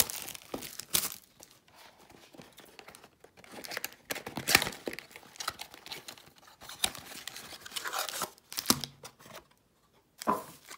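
Cellophane wrap crinkling and tearing as a cardboard trading-card mini box is unwrapped, then the box being opened and its foil card packs handled. Irregular rustles with a short quiet pause near the end.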